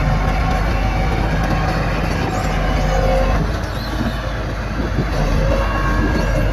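Heavy diesel earthmoving machinery working, its engine running steadily with a deep drone that eases briefly about halfway through.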